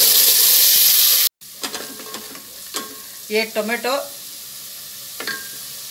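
Wet green masala paste of ginger, garlic, onion and coriander frying in hot oil in an aluminium pot: a loud sizzle for about a second and a half that breaks off suddenly. It is followed by a quieter, steady sizzle with light scraping as a wooden spoon stirs the paste.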